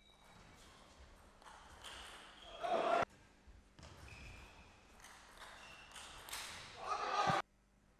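Table tennis rally: a celluloid ball knocking off paddles and the table in a large hall. Twice a swell of shouting and cheering rises as a point is won, and each is cut off abruptly, once about three seconds in and once near the end.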